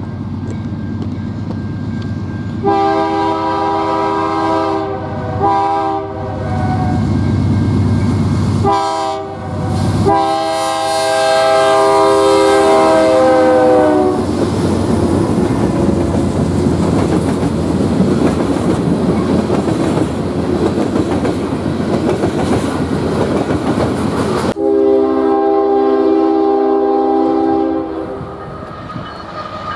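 BNSF freight train's diesel locomotive horn sounding a long, long, short, long pattern, the standard grade-crossing signal, with the last blast dropping in pitch as the locomotive passes. This is followed by the steady noise of the locomotives and freight cars rolling by. About 25 s in, a different train's horn sounds a long blast.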